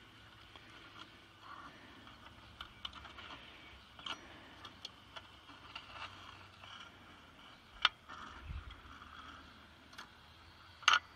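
Metal tongs clinking and scraping against the sheet-metal firebox of a toy steam engine as the burning fuel is reached for and lifted out: a string of small light clicks, with two sharper clacks, one past the middle and one near the end.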